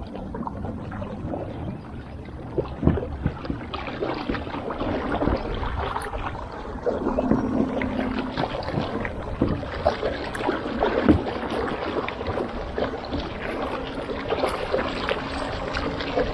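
Water splashing and churning around a Brooklyn Kayak PDL 10 pedal kayak under way, with scattered small knocks.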